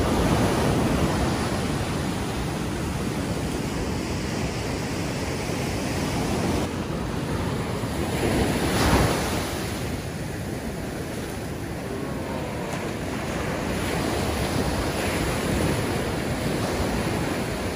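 Ocean surf breaking and washing up a sandy beach, a steady rushing wash, with one wave crashing louder about nine seconds in.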